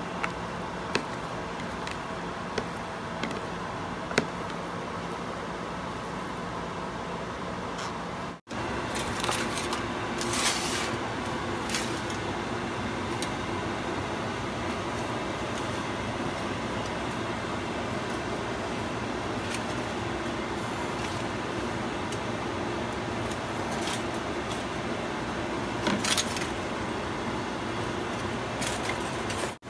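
Steady background hum, with a few light clicks of fingers against a clear container while a cheese and ground-meat filling is mixed by hand. After a cut about eight seconds in, aluminium foil crinkles now and then as hands press the filling into a portobello mushroom cap, most clearly a few seconds after the cut and again near the end.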